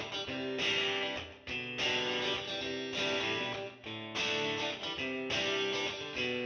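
Background music: a guitar instrumental, with chords played in a steady rhythm.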